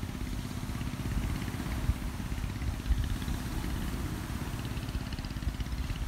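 Wind buffeting the microphone, a low uneven rumble, with a faint steady hum beneath it.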